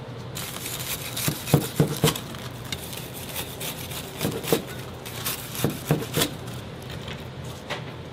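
A knife slicing through the crisp panko crust of a deep-fried breaded pork cutlet: a crackly crunch with sharp knocks as the blade reaches the cutting board. It comes in several groups of two or three strokes.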